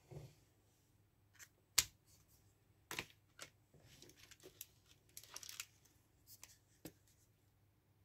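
Felt-tip color pens being handled: light plastic clicks as a pen is capped and put back in its plastic case and another is taken out, with two sharp clicks about two and three seconds in and a brief scratchy rustle around five seconds in.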